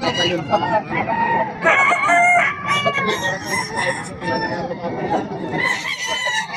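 Gamefowl stags and roosters crowing over one another, with clucking in between and voices in the background.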